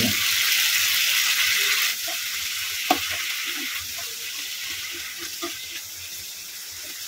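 Ground spice paste frying in hot oil with a splash of water, the stage of kosha (frying the masala until it is no longer raw): a loud sizzle that drops off sharply about two seconds in and keeps fading. A sharp knock about three seconds in and a few lighter knocks of stirring.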